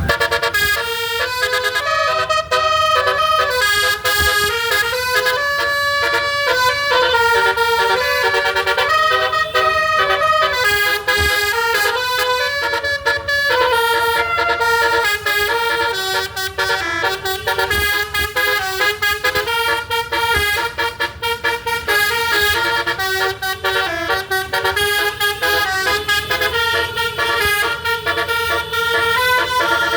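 Basuri 'telolet' multi-tone musical horn on a tour bus playing a tune, a constant run of horn notes stepping quickly from pitch to pitch without a break.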